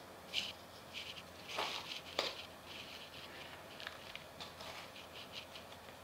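Garden trowel scooping sandy soil and tipping it into a small plant pot: soft scrapes and trickling, crunching grains, with a few louder scrapes in the first couple of seconds.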